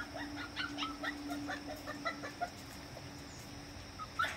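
Rapid series of short, squeaky animal calls, several a second for about two and a half seconds, over a low steady hum that stops with them. A single short rising call comes near the end.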